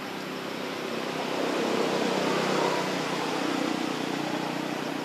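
Steady engine noise that swells about a second in and eases a little after about three seconds.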